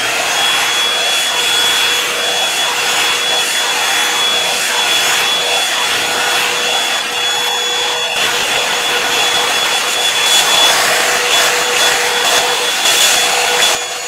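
Revlon One-Step Hair Dryer and Styler (paddle-brush model) running steadily: a loud rush of blown air with a high, steady motor whine over it, as the brush is drawn through hair.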